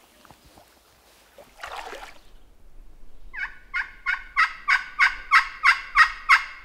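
Hand-operated turkey call sounding a run of about eleven evenly spaced hen yelps, about three a second and growing louder, starting about halfway through. It is calling meant to make a silent gobbler answer.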